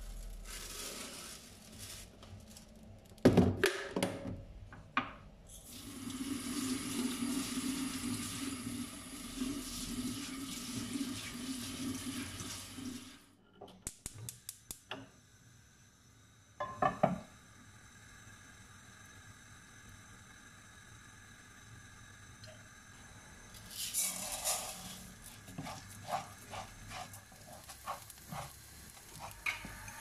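Kitchen tap running steadily for about seven seconds, with clatters and clinks of glass and cookware around it: a sharp clatter a few seconds in, a knock near the middle, and scattered clinks near the end.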